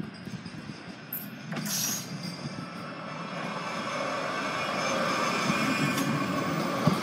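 Bombardier M5000 Metrolink tram approaching and passing, its wheels running on the rails and a steady whine, growing louder as it closes in.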